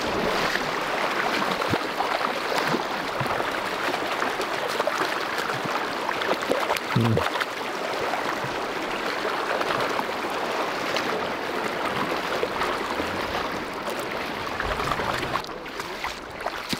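Shallow river water rushing over a stony bed: a steady, even rush.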